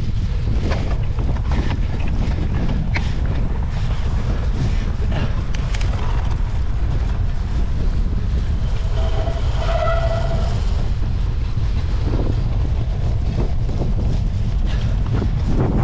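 Onboard sound from a handlebar-mounted action camera on a cyclo-cross bike racing over rough ground: a steady low wind rumble on the microphone with frequent clicks and rattles from the bike. A brief pitched tone sounds about halfway through.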